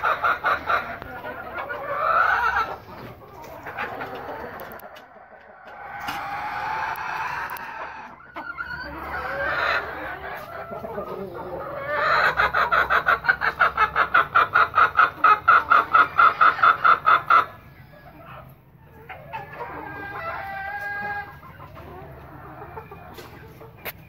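A flock of chickens clucking and calling. About halfway through, one bird gives a fast, even run of clucks for around five seconds. Near the end a longer, drawn-out call with a clear pitch follows.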